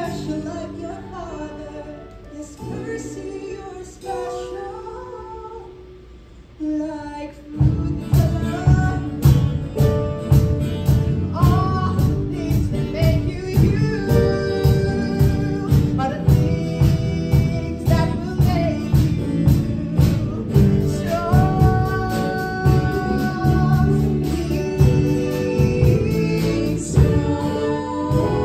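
A song from a live musical theatre performance: singing over a sparse accompaniment at first. About seven and a half seconds in, the full rock band of drums, bass, guitars and keyboard comes in with a steady beat, and the song goes on louder.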